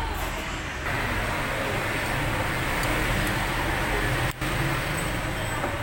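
Steady vehicle noise: a low hum under an even hiss, cutting out for an instant about four seconds in.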